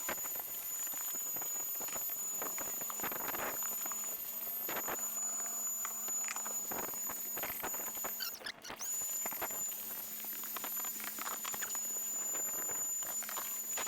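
Handheld car vacuum running with a steady high-pitched whine, its brush nozzle crackling as it picks up grit from the car's floor carpet. The whine cuts out for a moment a little past halfway and comes back.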